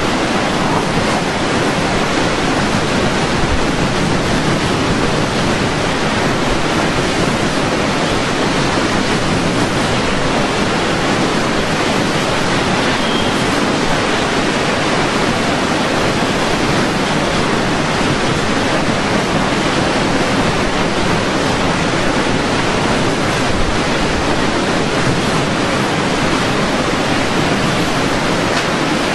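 Hurricane wind blowing hard and without let-up, a loud, steady rush of noise.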